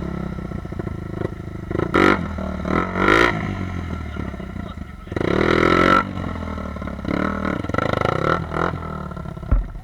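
Small off-road vehicle engine running under load in mud and water, revving up in several hard bursts, with a short thump near the end.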